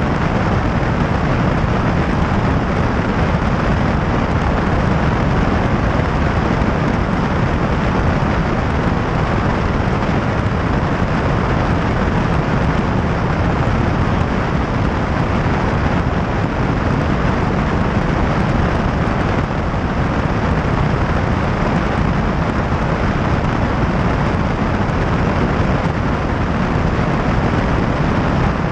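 Light single-engine airplane in level cruise: a steady, loud drone of the piston engine and propeller mixed with rushing airflow.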